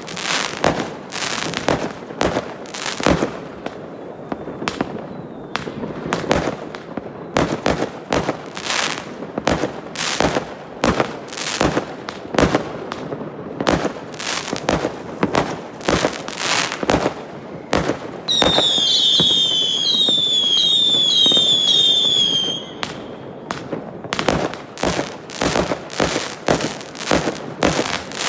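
Fireworks going off in a rapid, continuous run of bangs and pops. About two thirds of the way in, a shrill whistling firework screeches in short repeated sliding whistles for about four seconds, then the bangs carry on.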